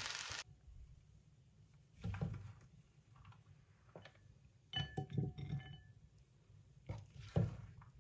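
Stir-fried rice sizzling in a frying pan, cutting off about half a second in. Then scattered clinks and knocks of a spoon on a ceramic plate, with a quick run of clinks near the middle that ring briefly.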